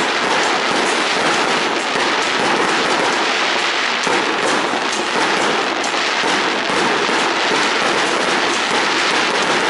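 Fireworks display: a dense, continuous crackle of rapid pops from aerial shells bursting. The level stays even throughout, with no single big boom standing out.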